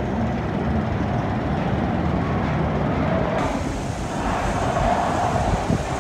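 Mine train roller coaster running along its steel track, a steady rolling noise from the cars and wheels.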